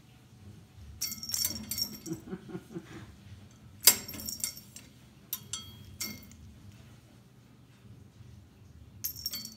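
Small jingle bell on a cat's catnip toy jingling in short bursts as the cat bats and grabs at it, with one sharp clack about four seconds in.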